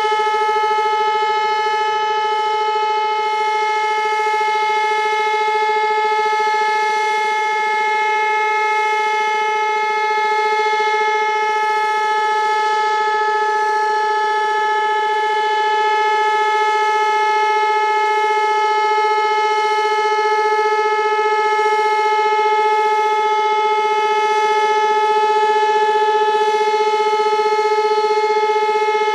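Elektror L1/F2 electric motor siren sounding loud and unbroken at a steady pitch, with no rise or fall. This is the continuous tone used for the Czech monthly siren test.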